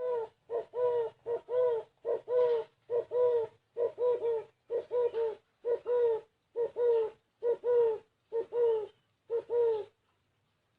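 Spotted dove cooing over and over: each phrase is a short note followed by a longer arched coo, roughly one phrase a second, ending about ten seconds in.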